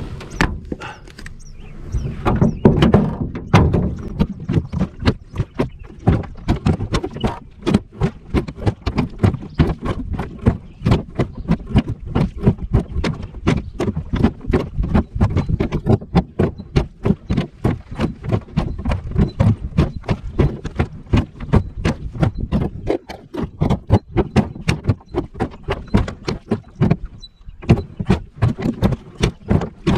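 Rapid, irregular knocking and clattering on an aluminum jon boat, several knocks a second, as the boat is maneuvered.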